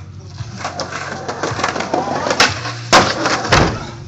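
Skateboard wheels rolling over concrete paving slabs, with several sharp clacks of the board, the loudest about three seconds in.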